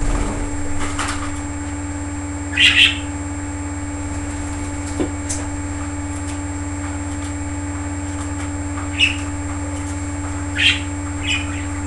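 A few short budgerigar chirps, a double one about three seconds in and several more near the end, over a steady electrical hum.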